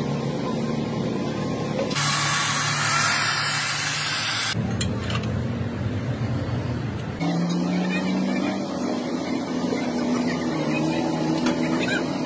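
Heavy machinery engines running in several short cut clips. From about two seconds in until halfway through, a loud hiss covers them.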